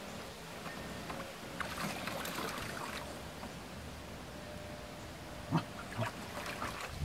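Water splashing and sloshing in a shallow plastic kiddie pool as a dog wades and turns around in it, with two sharper splashes near the end.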